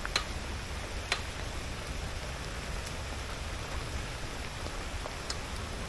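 Steady hiss of rain with a low rumble underneath, and two sharp ticks about a second apart near the start.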